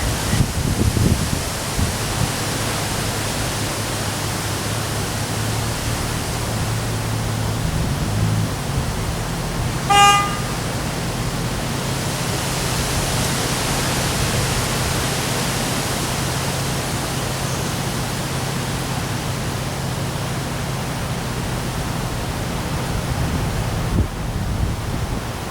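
Steady rushing noise of high wind and rain. About ten seconds in, a short car-horn toot sounds once.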